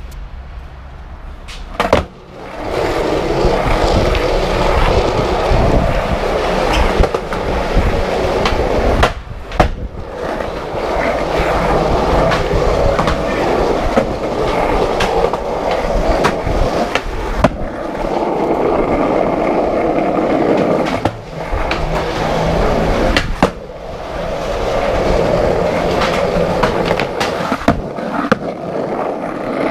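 Skateboard wheels rolling on a concrete sidewalk: a loud, steady rolling rumble broken every several seconds by a sharp clack.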